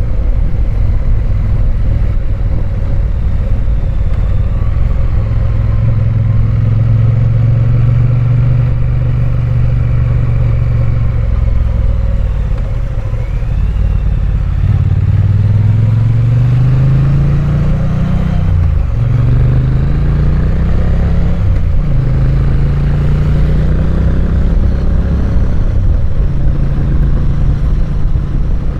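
Triumph Bonneville's parallel-twin engine riding along: a steady cruise, easing off about twelve seconds in, then climbing in pitch as it accelerates, dropping sharply at a gear change, climbing again and settling.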